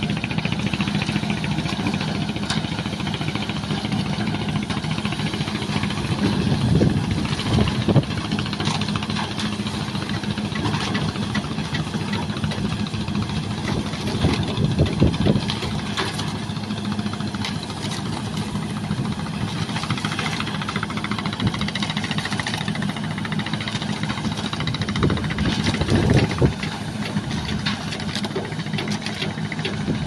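Concrete mixer pump's engine running steadily, with irregular knocks and clanks over the hum.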